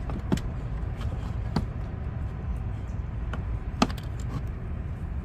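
A few sharp clicks and knocks, the loudest about four seconds in, as a loosened throttle body is worked free of the intake in a car's engine bay, over a steady low rumble.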